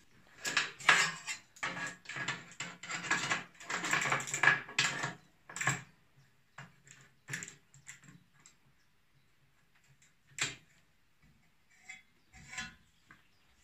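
A steel lawn mower blade scraping and clattering on a steel workbench top as it is moved into place, followed by a few separate sharp metallic clicks as locking pliers clamp it to the edge of the table.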